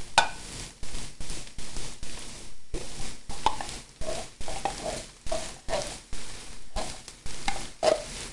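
Wooden spoon scraping and knocking inside a tin can as thick condensed cream of mushroom soup is worked out into a frying pan: repeated strokes, about two or three a second, some with a short squeak.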